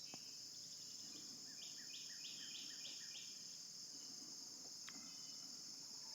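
Steady high-pitched insect chorus of crickets, faint and unbroken. About one and a half seconds in, a bird calls a quick series of about six repeated notes.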